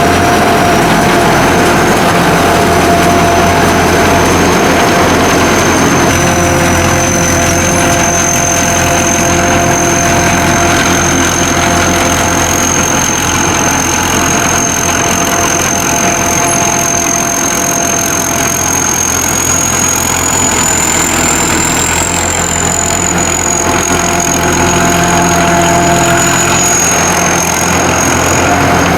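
SAKPATTANA SS-200 mini combine harvester running steadily, its engine and machinery giving a constant drone with a high whine that drifts slightly in pitch.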